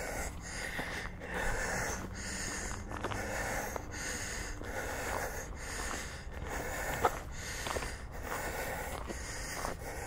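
A person walking close to the microphone: a steady rhythmic swishing that repeats about every three quarters of a second, breath and footfalls, with a sharp tick about seven seconds in.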